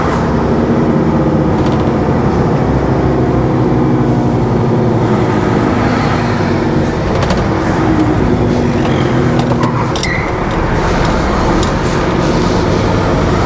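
Car transporter truck's diesel engine running steadily with the exhaust brake slowing it, heard from the cab, with scattered knocks and rattles as the rig goes over a bumpy level crossing.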